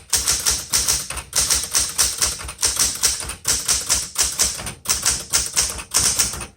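Smith Corona Galaxie Deluxe II manual typewriter being typed on: a steady run of sharp keystrokes, about four or five a second, the typebars striking the platen.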